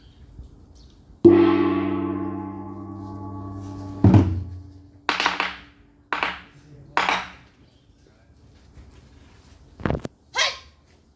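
A gong struck once, ringing with a shimmering, slowly fading tone for about three seconds, then a deep drum stroke and a handful of sharp, separate strikes about a second apart, part of a Korean traditional drum performance.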